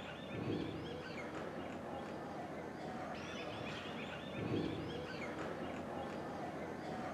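Small birds chirping and singing over a steady outdoor background, with two short, louder low calls, one about half a second in and one a little past the middle.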